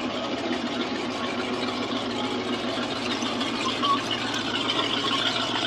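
Engine of a lifted pickup truck on oversized tyres running as it rolls slowly past, with people talking in the background.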